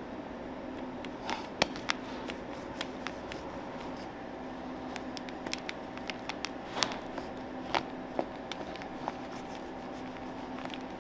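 Serrated knife sawing through a chocolate-glazed cake, its hard chocolate shell cracking in scattered sharp clicks and crackles, with the blade scraping as it goes.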